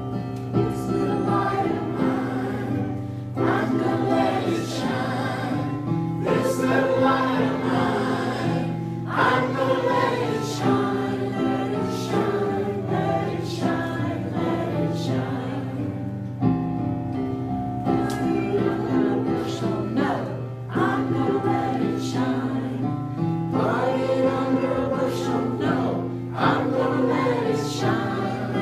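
A choir singing a gospel-style Christian song over instrumental backing with a steady beat.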